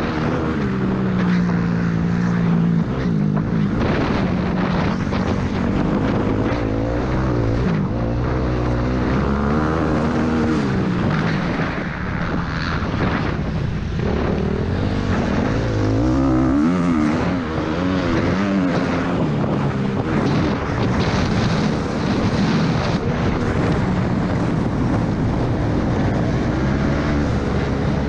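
Suzuki RM-Z motocross bike's four-stroke single-cylinder engine revving up and down as it is ridden hard through the gears, easing off briefly about twelve seconds in for a slow corner.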